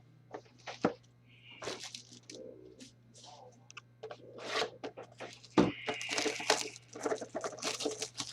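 Trading-card packs and their packaging being handled: crinkling and tearing of wrappers with scattered clicks and rustles, growing busier about halfway through.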